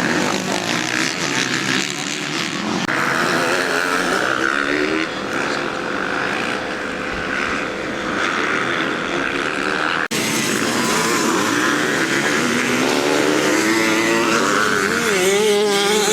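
Motocross bike engines revving up and down as they are ridden round a dirt track, with an abrupt break about ten seconds in and a rising rev near the end.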